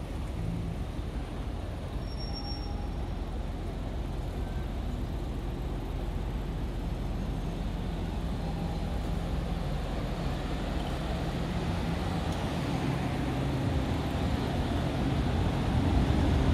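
Road traffic on a city street: a steady rumble of passing cars and buses, growing louder near the end as vehicles come closer.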